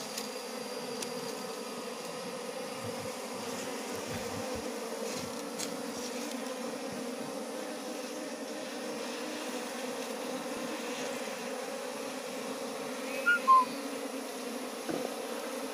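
A colony of Asian honeybees (Apis cerana) buzzing steadily at its nest while the comb is taken by hand, with a brief sharper sound near the end.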